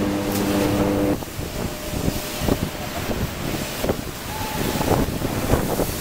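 Steel mill machinery noise. A steady, multi-tone machine hum cuts off about a second in, giving way to a loud rumble full of irregular clanks and knocks.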